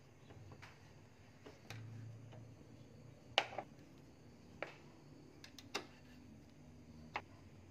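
Scattered sharp clicks and taps of metal tools and bolts on an LED light bar's mounting bracket as it is fastened loosely. There are about seven at uneven intervals, the loudest a little over three seconds in.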